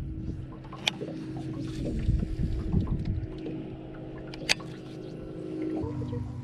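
Motorboat engine droning at an even pitch over a low rumble, with two sharp clicks and a change in the drone near the end.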